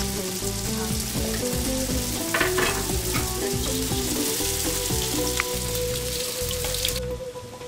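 Borsok dough pieces frying in hot oil in a pan, sizzling steadily, with a few clinks about two and a half seconds in. The sizzle cuts off suddenly near the end.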